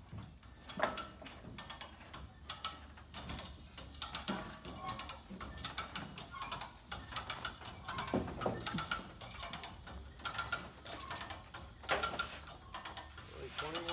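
A ratchet being worked in repeated strokes: clusters of sharp clicks that come and go unevenly.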